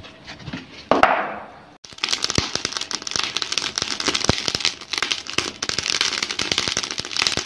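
Fire crackling with dense, irregular pops in a homemade tin-canister charcoal stove as newspaper kindling and lump charcoal catch, with a brief rush of noise about a second in.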